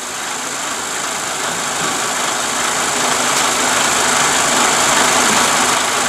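Truck tractor unit's air suspension hissing steadily and slowly growing louder as compressed air lifts the chassis under the trailer, over the diesel engine idling.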